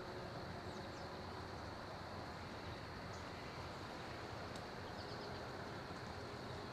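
Steady rural outdoor background hiss with a few faint, brief bird chirps scattered through it.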